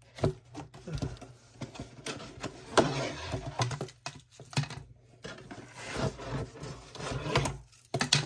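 Clear plastic rods being drawn out of a cardboard box and set down on a desk, rubbing and clacking against the cardboard and each other in irregular scrapes and knocks, the loudest about three seconds in.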